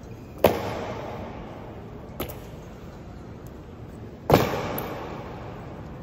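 Ceremonial honour guard drill: two loud sharp knocks about four seconds apart, each ringing on in a long echo, with a fainter click between them.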